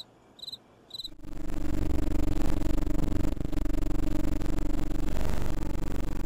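A cricket chirping, short high chirps about twice a second. About a second in, a much louder steady drone with a deep rumble starts and covers the chirping; it is the sound of the closing title cards.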